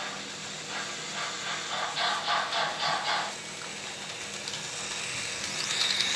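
Märklin model steam locomotive running with a rhythmic chuffing hiss, about five chuffs a second, fading after about three seconds. Near the end its motor and wheels on the track whir louder with a thin high whine as it passes close.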